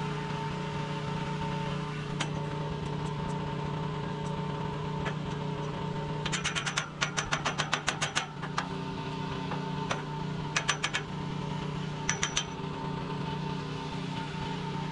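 Hammer striking a freshly welded steel pipe joint in quick runs of sharp metallic taps: about ten in a row about six seconds in, then two shorter runs. A steady mechanical hum runs underneath.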